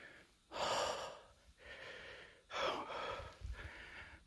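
A man breathing heavily close to the microphone: three long, hissing breaths, the first and last louder than the middle one.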